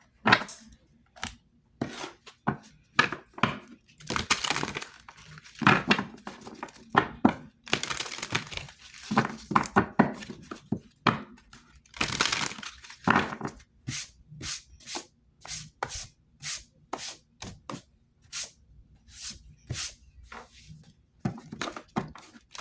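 A deck of cards being shuffled and handled by hand: a long run of quick, crisp card slaps and riffles, with denser flurries of rustling around four, eight and twelve seconds in.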